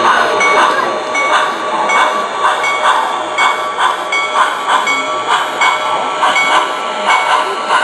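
Proto-Sound 3.0 digital sound system in an MTH HO-scale 2-8-8-4 Yellowstone model steam locomotive playing steam exhaust chuffs through its onboard speaker, about two a second, over a steady tone.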